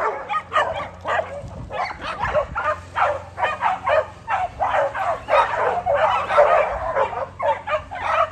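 A pack of dogs barking and yipping, many short barks overlapping without a break.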